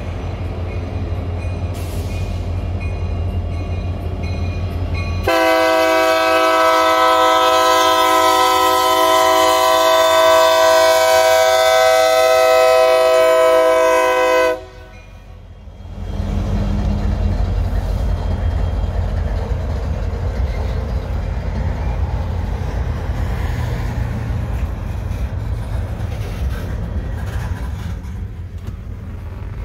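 Union Pacific diesel freight locomotives sounding their multi-chime air horn in one long chord of about nine seconds as they reach the grade crossing, the warning for the crossing; the horn starts and stops abruptly. Before and after it, the low rumble of the locomotives and freight cars rolling past.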